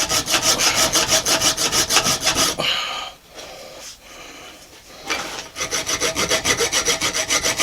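Hand file scraping over two clamped aluminium pommel pieces in quick, even strokes, about four or five a second. The filing stops for about two and a half seconds midway, then starts again.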